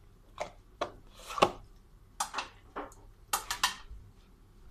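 Cutlery and dishes handled on a wooden table: about ten short, sharp clicks and knocks, some in quick little clusters.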